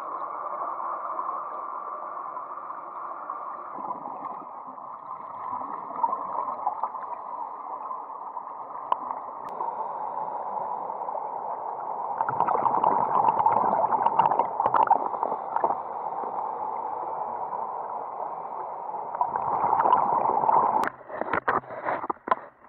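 Muffled rushing and gurgling of water heard from inside an underwater camera housing, louder for a few seconds midway through. Near the end, once the camera is out of the water, a series of sharp knocks.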